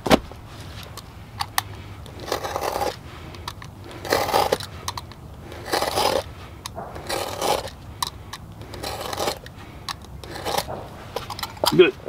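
Razor knife blade drawn repeatedly along a thick rubber mud flap to score a cut line: six scraping strokes, about one every second and a half, with a sharp click at the start.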